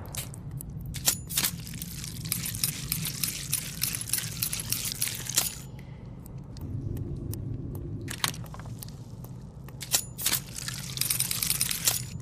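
Quiet, scattered sharp metallic clicks and jingling rattles over a low steady rumble, densest in the first five seconds or so and again near the end.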